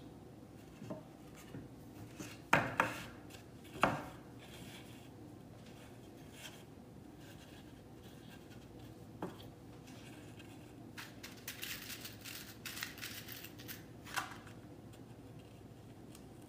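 Burlap being stretched and tacked onto a wooden stretcher-bar frame with flathead thumbtacks: handling noise of the coarse cloth and small clicks. Two sharp knocks come about two and a half and four seconds in, and there is a longer stretch of scratchy rustling in the latter part.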